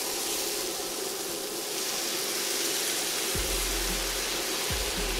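Veal stock poured into a hot pan of sautéed butternut squash and onion, hissing and bubbling steadily as it deglazes the pan and lifts the browned cooking juices.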